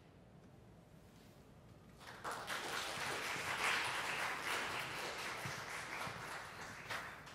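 Audience applauding, beginning about two seconds in after a short hush and tapering off near the end.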